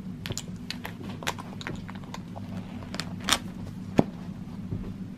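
Close-up handling of small items being packed into a soft black pouch bag: a string of light clicks, taps and rustles, with two sharper knocks about three and four seconds in, over a steady low hum.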